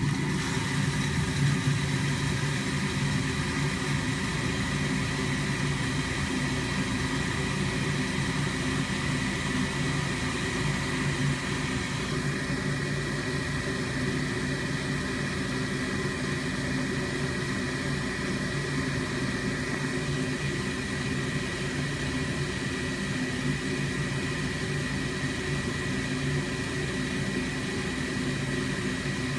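Home furnace running: a steady mechanical hum with a thin high tone above it, unchanging throughout.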